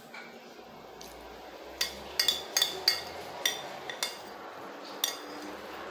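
A spoon clinking and scraping against a plate while the last of the food is scooped up: a run of about ten sharp clinks, most of them between two and three and a half seconds in.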